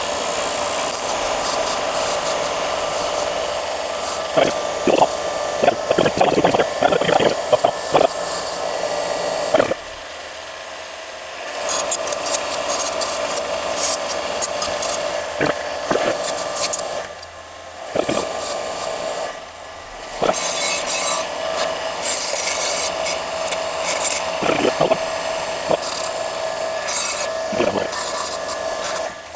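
Power wire wheel spinning with a steady whine while rusty nuts and bolts are held against it, giving rough scraping strokes as the rust is brushed off. The scraping lets up briefly a few times.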